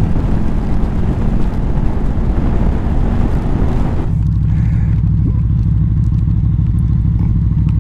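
Honda VFR800F's V4 engine running steadily under way. For the first four seconds or so a loud wind rush on the microphone covers it, then drops away suddenly, leaving the engine note clear.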